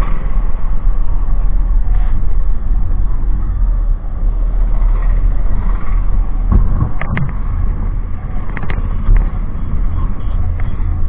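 Motorcycle on the move: engine and road noise as a steady low rumble, loud on the microphone, with a few brief clicks in the second half.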